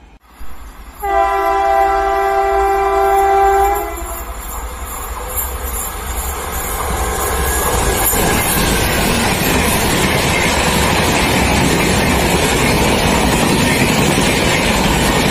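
Electric locomotive's horn sounding one long steady blast of about three seconds, then the growing rumble and clatter of the train's wheels on the rails as the locomotive and its coaches pass close by.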